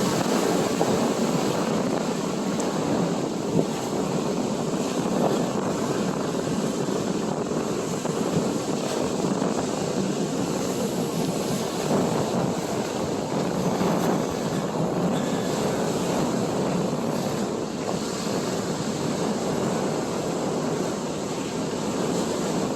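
Ocean surf washing steadily onto the beach, with wind blowing across the microphone.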